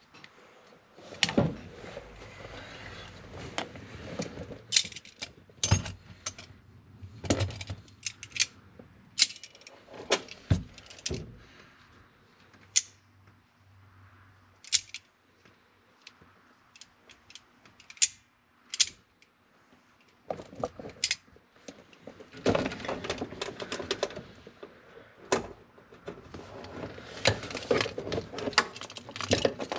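Scattered metallic clicks and clinks with rustling, from hands and locking pliers working at the gas pedal and its throttle cable under a car's dashboard. The rustling comes in longer stretches near the end.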